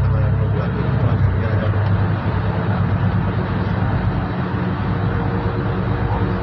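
Solaris Urbino 12 city bus running along the road, heard from inside the cabin: a steady low engine and drivetrain hum over tyre and road noise.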